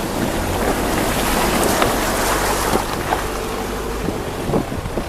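Steady rushing noise of a vehicle in motion, with a low engine hum under the road and wind noise.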